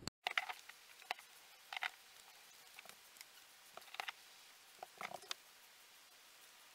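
Faint, scattered light clicks and scrapes of a brush laying a resin gloss coat onto a surfboard deck, about eight over five seconds and then quieter.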